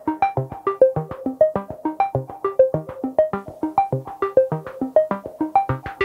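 Background music: a quick run of short, plucked-sounding synthesizer notes, about seven a second.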